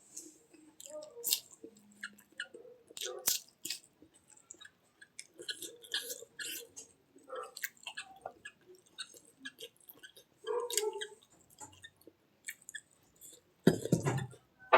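A person chewing food, with irregular wet smacking and clicking mouth sounds, and one louder thump near the end.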